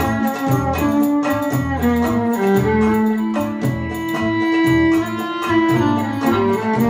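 Live Middle Eastern-style band music: a violin plays a melody with sliding notes over mandolin, bass and steady dumbek drum strokes.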